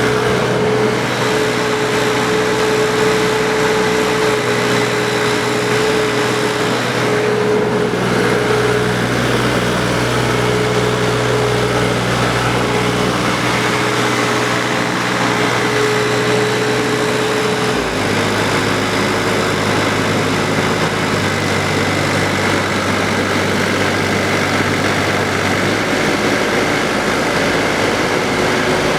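A 1.8-ton mini excavator's diesel engine running steadily. Its note drops a step about two-thirds of the way through and shifts again near the end, as engine speed or hydraulic load changes.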